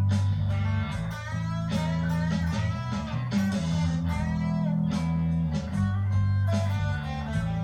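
Slow psychedelic blues jam at 75 bpm in E Dorian: electric guitar playing bending, wavering notes over a steady bass line.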